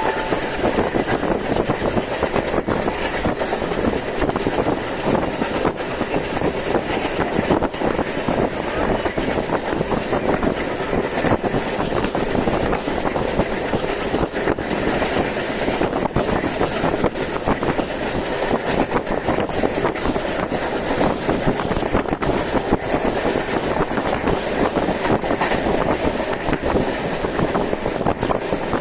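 Express passenger train running on the rails: a steady, loud rumble of wheels and rail noise with many small clicks through it, and a faint steady high whine above.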